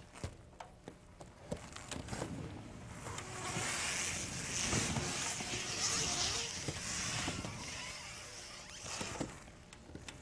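Movement sounds of a duet on a stage floor: scattered light knocks and scuffs of feet and a manual wheelchair, then a longer rushing swell from about three to eight seconds in as the chair's wheels roll and turn across the floor.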